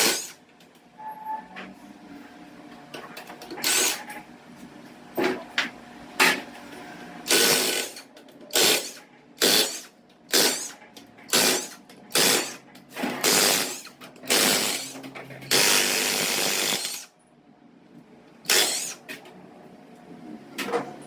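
Irregular short blasts of hissing noise, like a shop tool or compressed air, most a fraction of a second long and one about a second and a half long near the end, with a faint steady hum underneath.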